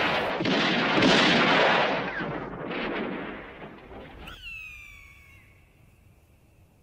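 Sound-effect gunfire: a loud blast that rings out and dies away over about four seconds. Then a high whine falls in pitch and fades, like a ricochet.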